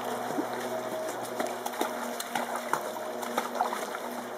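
Water splashing in an inflatable paddling pool as a puppy paddles through it: irregular small splashes and sloshes over a steady low hum.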